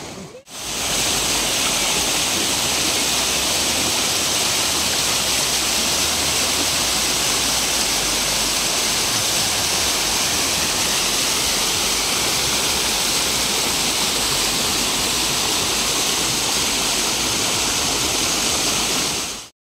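Waterfall pouring down a rock face: a steady rush of falling, splashing water that begins about half a second in.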